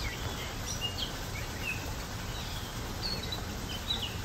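Songbirds chirping outdoors: scattered short, high chirps and quick whistled notes every half second or so, over a steady low background rumble.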